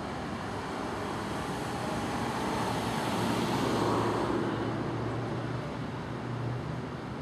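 Street traffic: a vehicle passes close by, its noise swelling to a peak about four seconds in and then fading, with a low hum lingering as it moves away.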